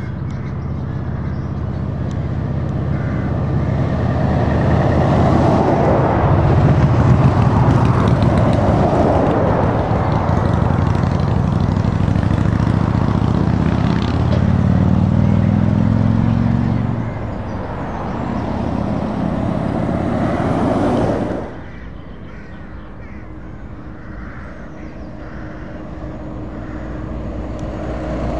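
Heavy trucks driving past one after another, led by Scania R580 V8 tractor units, with engine and tyre noise swelling and fading as each goes by. The sound drops suddenly about three quarters of the way through, then another truck is heard approaching near the end.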